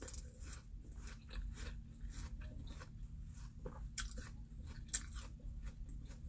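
A person biting into and chewing a freshly picked Korean pear, with irregular crisp crunching bites. The pear is juicy but not yet ripe.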